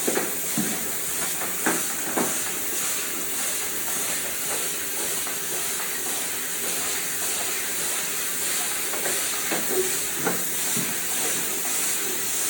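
Steam cleaner jetting steam onto floor tiles with a steady hiss as the tile surface is scrubbed, with a few short knocks from the tool against the tiles near the start and about ten seconds in.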